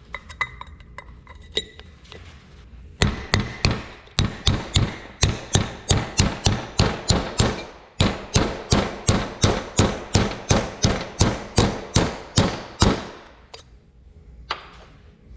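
A meat hammer striking a steel driver tool, driving a speedy sleeve (crankshaft wear sleeve) onto an Oliver 1855 crankshaft. It is a run of about thirty quick, even blows, roughly three a second, with a short break midway and a single knock near the end.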